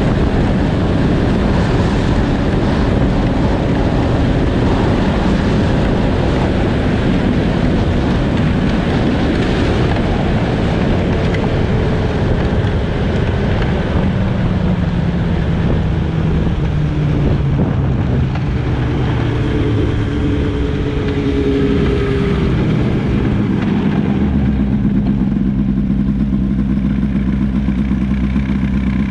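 Snowmobile engine running under way, its pitch falling as the sled slows from about halfway through, then settling into a steady idle near the end.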